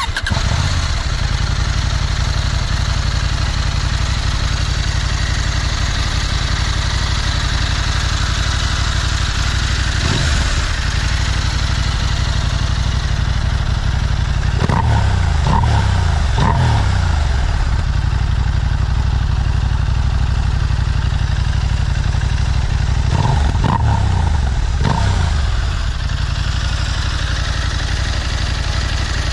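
KTM 790 Adventure's parallel-twin engine idling through its stock exhaust, blipped once about ten seconds in, then given two sets of three quick revs.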